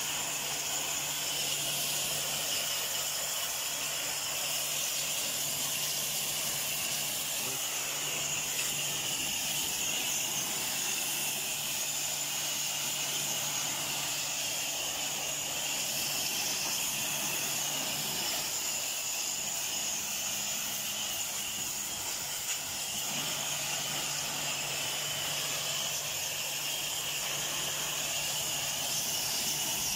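Pressure washer running, its jet hissing steadily as it sprays the aluminium fins of an air-conditioner evaporator coil.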